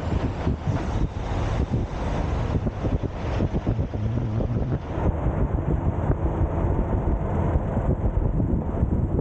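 Peterbilt 389 semi truck's diesel engine running at low speed as the truck rolls and turns, a low rumble with wind buffeting the outside microphone.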